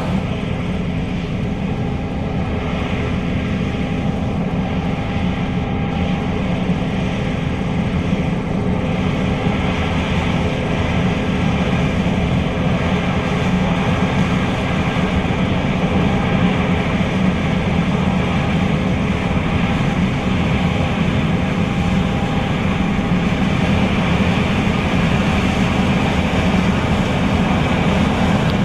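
John Deere S660 combine harvester running steadily under load, its engine and threshing machinery giving a continuous low drone.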